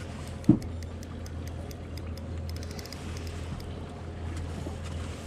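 Ambient sound aboard a small fishing boat on calm water: a steady low hum with scattered faint light ticks, and one dull knock against the boat about half a second in, the loudest sound.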